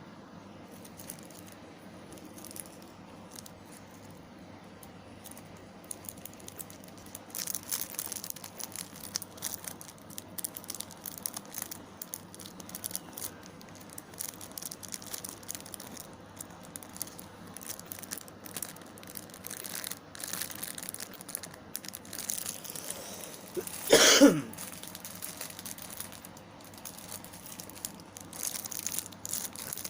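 Plastic packaging of soft fishing lures crinkling and tearing as it is handled and opened, in scattered short crackles. One loud, short sound, like a cough, comes about three quarters of the way through.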